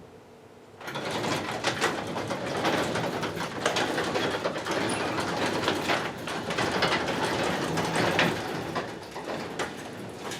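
Garage door opener running an old wooden sectional garage door down its tracks, a steady rattling with many small clicks from the rollers and chain, lasting about nine seconds and easing off near the end.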